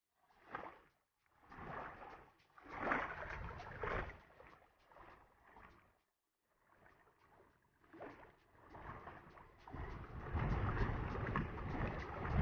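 Small waves washing against the shore rocks, coming in irregular surges. From about ten seconds in, wind buffets the microphone with a steady low rumble.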